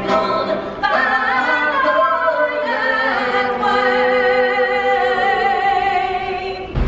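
A woman singing solo into a microphone over the arena's sound system, slow and unaccompanied, with long held notes and vibrato. Just before the end it cuts abruptly to loud music with a heavy bass.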